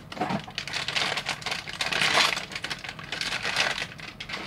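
Plastic bag and paper wrapping crinkling as they are handled, with sharp clicks of the black weight chips from a blind box knocking together; the crinkling is loudest about two seconds in.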